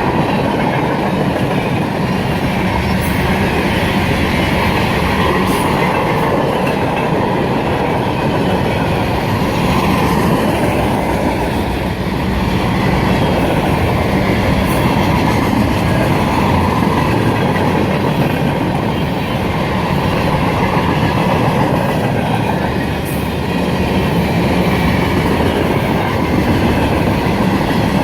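A freight train's cars rolling past, a loud, steady rumble and clatter of steel wheels on the rails.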